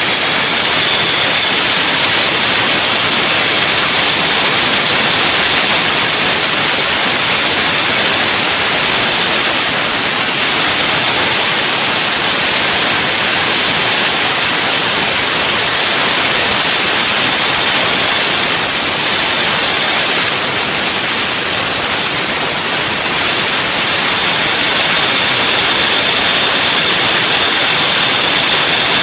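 Komatsu PC200-8 excavator's turbocharged diesel engine running at high revs, heard close up: a loud, steady rushing noise with a high whine over it that wavers slightly in pitch.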